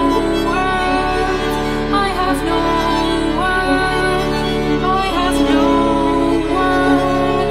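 Slow, sad string music led by violin: layered held notes with sliding pitch changes over sustained lower notes.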